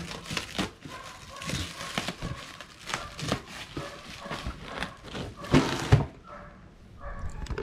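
Clear plastic wrapping on a parcel crinkling and tearing as a knife cuts it open, in a run of irregular crackles and rips. The loudest rips come just before the last second or two, which are quieter.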